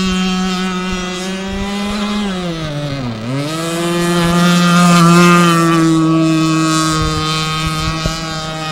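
Fuel-powered engine of a radio-controlled blade speedboat running at high revs in a steady high-pitched whine. About two seconds in the pitch sinks as the revs drop, then it climbs back up and holds steady again.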